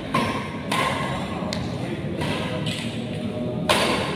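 Badminton rally: rackets hitting the shuttlecock about five times, roughly a second apart, with the sharpest hit near the end, in a large hall.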